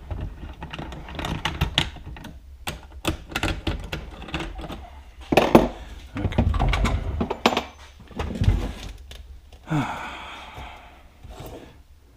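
Metal hand tools and spring-compressor parts clicking, clinking and knocking in quick, irregular strokes, with a few short rattling stretches, while the compressors come off a motorcycle shock spring.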